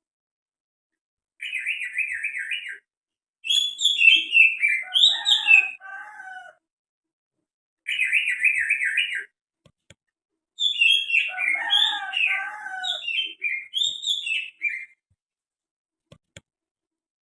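Cucak hijau (greater green leafbird) singing: twice a short, fast, rattling trill followed by a longer run of varied whistled notes that slide downward, the second bout repeating the first.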